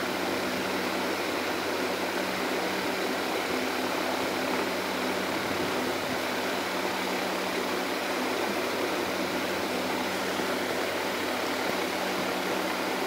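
Steady hiss of a running fan with a low electrical hum underneath; it stays level and unchanging throughout.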